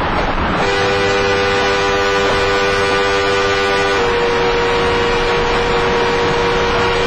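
A vehicle horn held down, over steady noise. It sounds two notes together at first, changes to a single note about four seconds in, and cuts off near the end.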